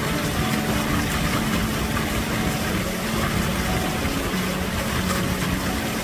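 Steady rush of a mountain stream's water, with faint background music underneath.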